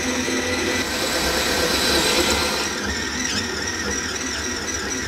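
Kenwood Cooking Chef stand mixer running with its dough hook, kneading a stiff dough in a steel bowl: a steady motor whine over a low rumble.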